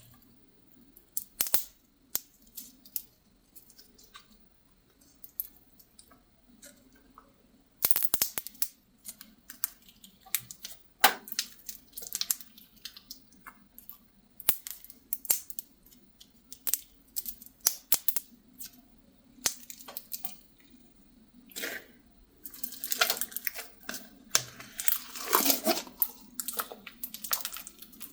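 Slime being squeezed, poked and stretched by hand, giving a series of sharp sticky clicks and wet pops. They come sparsely at first, then in busy clusters from about eight seconds in and again near the end.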